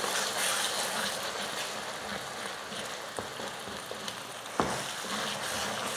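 Eggs sizzling in hot oil and masala in a kadai as a wooden spatula stirs and scrambles them, a steady hiss with one light knock about four and a half seconds in.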